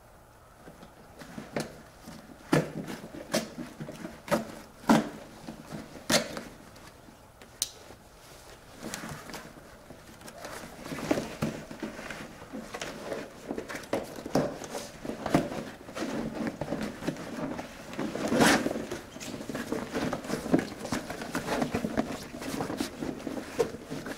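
Heavy waterproof fabric of a motorcycle dry saddlebag rustling and crinkling as a stiff plastic stiffener plate is wrestled out from inside, with scattered sharp clicks and knocks. The handling grows denser and busier about halfway through.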